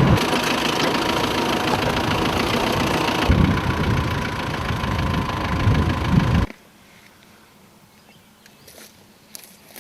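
A vehicle's engine running, with a loud, even rush of noise and a few low surges. It cuts off abruptly about six and a half seconds in, leaving a much quieter background.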